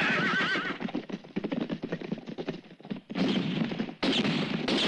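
Film soundtrack of horses galloping: a fast, irregular clatter of many hooves, opened by a wavering shout. A loud stretch of noise takes over for the second half.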